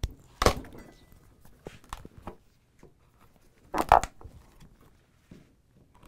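Steel wood chisel levered and pushed by hand into a hole-saw kerf in a 4x6 timber, splitting and prying out the wood core: a few short, sharp cracks and scrapes, the loudest about half a second in and about four seconds in.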